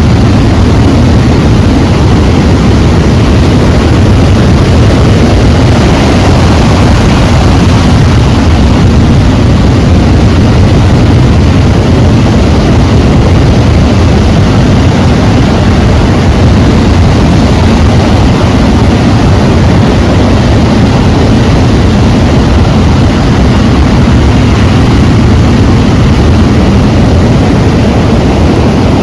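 Loud, steady rush of sea waves, an unbroken roar heaviest in the low end, with no separate swells or crashes standing out.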